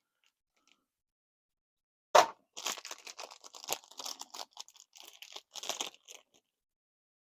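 Packaging handled while a soft plastic shrimp lure is taken out: a sharp crack about two seconds in, then a few seconds of irregular crinkling and crackling.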